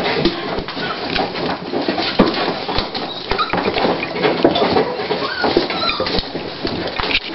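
A toy pinscher in labour shifting and rummaging in a blanket right against the microphone: continuous rustling and crackling with many small clicks and a few faint short squeaks.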